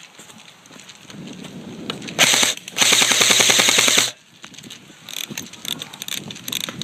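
Airsoft gun firing on full auto: a short burst about two seconds in, then a longer rapid burst of about a second and a half, followed by scattered softer clicks.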